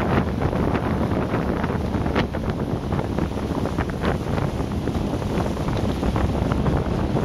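Wind buffeting the microphone over open water, a steady low rumble, with a few faint sharp ticks scattered through it.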